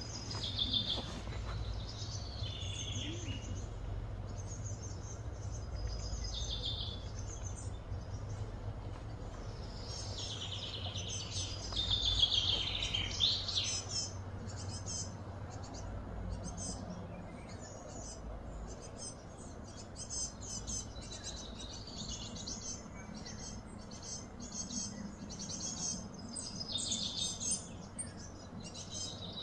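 Wild birds chirping and calling in short high phrases, with a louder run of falling chirps about twelve seconds in, over a faint steady low hum.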